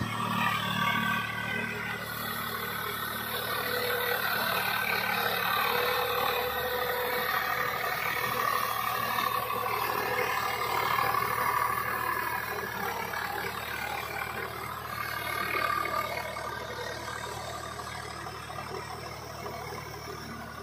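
Swaraj 744 FE tractor's three-cylinder diesel engine running steadily under load while its rotavator churns through flooded paddy mud. The sound fades over the last few seconds as the tractor moves away.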